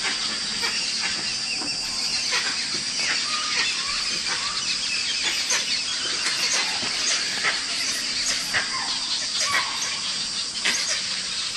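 Jungle ambience: a steady high-pitched insect drone with many short bird calls and chirps scattered throughout.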